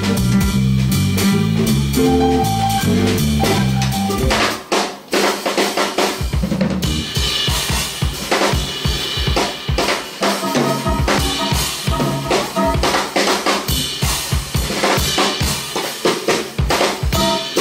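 Live band music: drum kit with electric bass, electric guitar and keyboard. About four seconds in the bass line drops out, and the drums carry on with busy snare, rimshot and kick hits under sparse guitar and keyboard chords.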